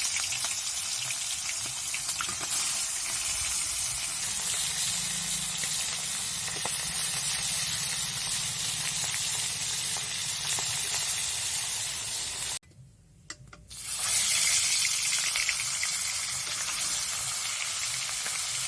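Pieces of young hilsa fish sizzling as they fry in hot mustard oil in a kadai, with small crackles of spattering oil. The sizzle drops out for about a second about two-thirds of the way through, then returns.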